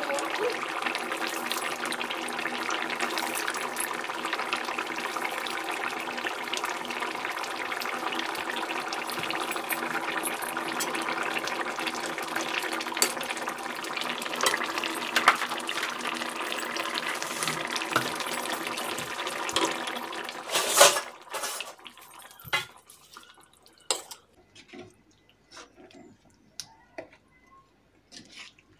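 Thin fish curry boiling in a steel kadai, a steady bubbling and sizzling for about twenty seconds that stops abruptly. Sharp clinks and knocks of a spoon against the pot follow.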